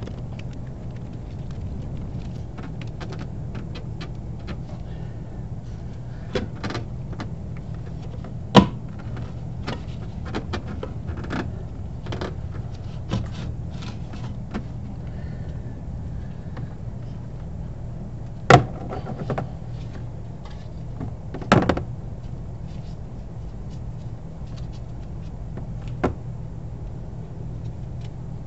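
Scattered small clicks and a few sharp knocks as an RV waste gate valve of hard plastic is handled and worked on by hand, over a steady low hum.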